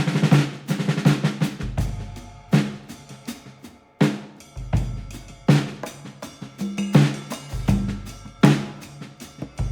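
Background music with a steady drum beat, starting suddenly after a brief silence.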